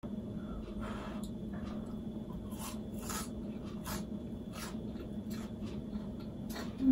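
Chewing a crispy pan-fried bean-sprout pancake (kongnamul buchimgae): about ten short, irregular crunches, over a steady low hum.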